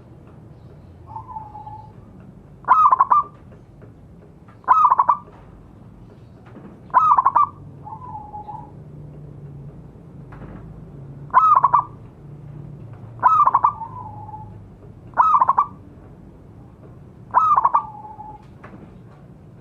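Zebra doves (perkutut) cooing: a loud, short, rolling call repeats about every two seconds, seven times. A fainter, shorter, lower call from a second dove answers after several of them.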